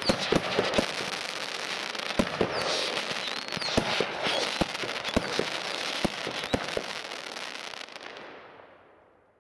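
Weco Power Tec PRO 300.1 pre-fused firework show firing aerial effects: a dense continuous crackle with a dozen or more sharp bangs and a few short whistles. The bangs stop about seven seconds in, and the crackle fades out over the last second or two.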